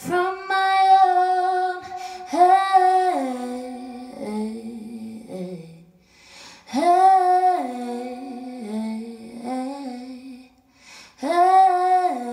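A young woman singing unaccompanied into a microphone, without words: a held phrase that rises, holds and falls to a lower note, repeated four times with short pauses between.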